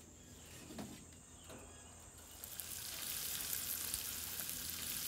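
Floured possum pieces dropped into hot bacon grease in a cast-iron skillet, the grease starting to sizzle and crackle about two and a half seconds in and going on steadily.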